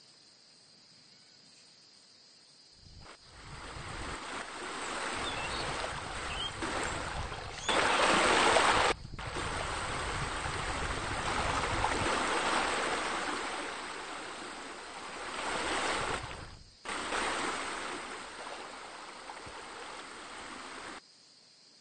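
Rushing, splashing water from pool water features (deck jets, bubblers and a spa) as a steady noise. It fades in about three seconds in, is loudest briefly around eight seconds, and changes level abruptly a few times before cutting off suddenly near the end.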